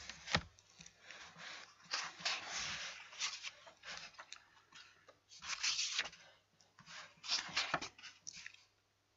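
Paper being shuffled and rubbed close to the microphone: irregular scratchy rustles in uneven bursts. A faint steady electrical hum runs underneath.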